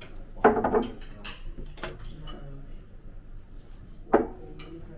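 Cups and crockery clinking on a table, with several sharp clinks in the first half.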